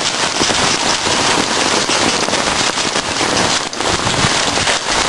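Heavy rain falling in a thunderstorm: a steady dense hiss with many sharp close drop hits.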